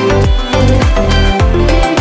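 Background music: an electronic dance track with a steady heavy bass beat.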